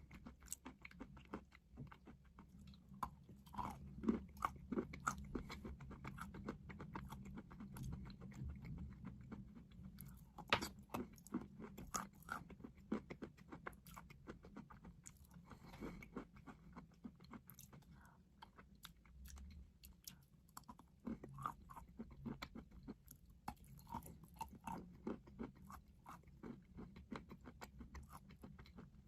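A person biting and chewing crunchy chalk: a continuous run of irregular, sharp crackling crunches.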